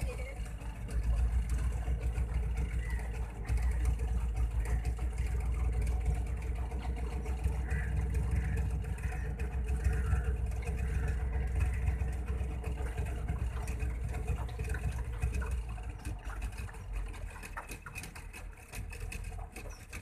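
Small boat's motor running steadily under way, with a heavy low rumble; it quietens in the last few seconds.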